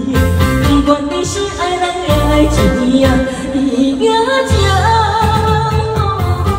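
Karaoke backing track playing at full level: a pop-style accompaniment with a repeating bass beat and a melody line that rises and falls about two-thirds of the way through.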